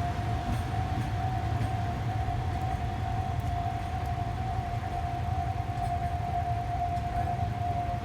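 A level-crossing warning alarm sounding one steady, unbroken high tone, over a steady low rumble.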